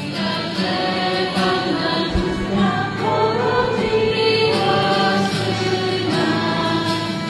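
Music with several voices singing together in a choir style over a steady instrumental accompaniment.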